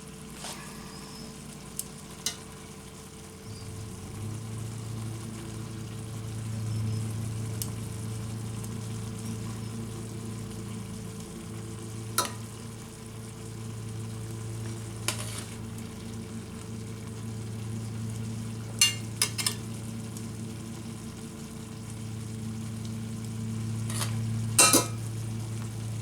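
Kitchen cooking sounds: a steady low hum that comes in about three and a half seconds in, with a few sharp clinks of a utensil against a pan scattered through, several close together near the end.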